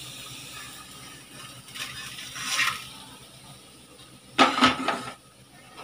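Kitchen handling sounds of a nonstick frying pan: a soft scrape as the cooked dangela slides out onto a plate, then a brief clatter of the pan about four and a half seconds in.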